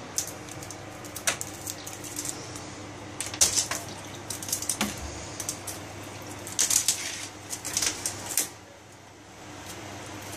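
Scattered clicks and scratchy scuffles of a cat pouncing and scrabbling on a wooden parquet floor while it swats at a cloth measuring tape, coming in short flurries with the busiest stretch in the second half.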